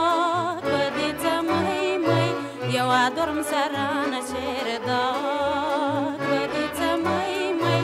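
A woman singing a Romanian folk song from northern Moldavia with a folk band. The melody carries a wide vibrato over bass notes played on the beat.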